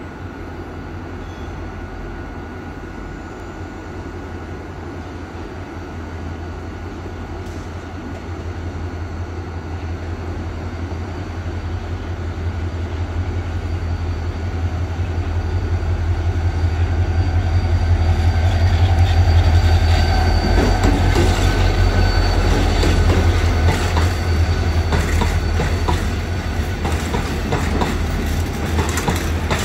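A freight train carrying steel coils approaches and passes. The locomotive's low rumble grows louder to a peak about two-thirds of the way through, then the wagons' wheels clatter over the rail joints with a thin squeal.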